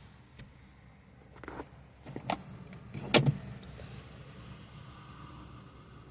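A few short clicks and knocks, scattered and irregular, the loudest a double knock about three seconds in, from hands working on a car's parts.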